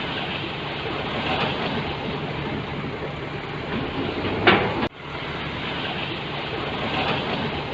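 Heavy construction machine's diesel engine running steadily under work, with a sudden brief drop in level about five seconds in.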